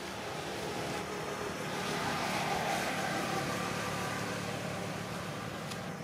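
A motor vehicle passing by, its engine and road noise swelling to a peak about two and a half seconds in, then slowly fading.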